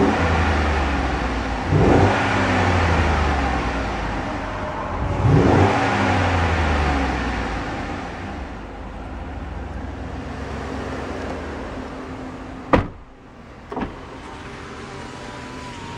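Chevrolet Tahoe Z71's Vortec V8 heard from inside the cabin, revved in three quick blips that rise and fall in pitch and then settle back to idle. Near the end come two sharp clicks.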